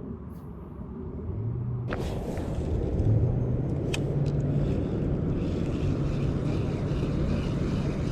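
A low, steady motor rumble with a hum, building up over the first two seconds and then holding, with a couple of sharp clicks about two and four seconds in.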